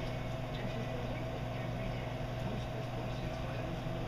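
Reef aquarium equipment running: a steady low electrical hum from the tank's pumps, with a faint higher tone and a constant hiss, unchanging throughout.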